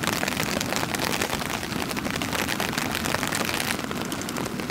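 Heavy rain falling steadily, a dense patter of drops on water and ground. It turns a little duller near the end.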